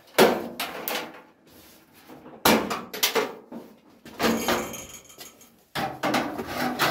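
Loose steel front wing of a Ford Escort Mk1 being taken off the car, giving several separate metallic knocks and rattles against the bodywork as it is handled.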